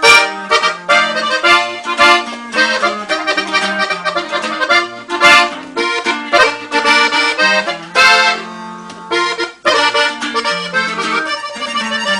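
Instrumental intro of a norteño corrido: accordion playing a quick melody over a stepping bass line, with sharp accented strikes.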